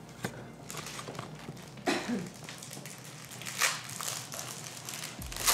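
Packaging being handled during an unboxing: intermittent crinkling and rustling, with a sharp click near the start and a brief vocal sound about two seconds in.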